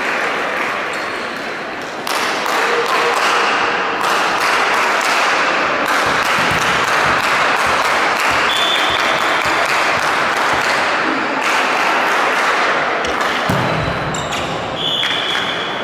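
Crowd noise echoing in a sports hall during a volleyball match: spectators clapping and calling out, louder from about two seconds in. There are a few short high squeaks, one in the middle and one near the end.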